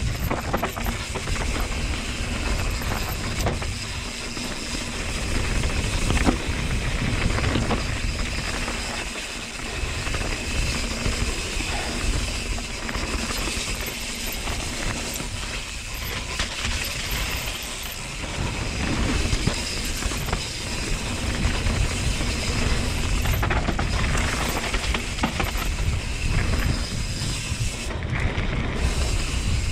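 Mountain bike descending a rocky dirt trail: the tyres rumble over dirt and loose stones while the bike rattles and clicks over the bumps, with wind buffeting the camera's microphone.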